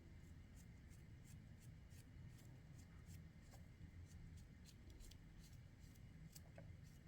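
Near silence: a low steady hum with faint, light ticks a few times a second.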